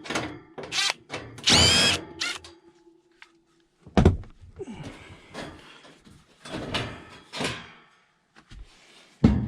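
Metal knocks and thunks from work on the furnace cabinet, with a short high screech about one and a half seconds in and two heavy thuds, one about four seconds in and one near the end.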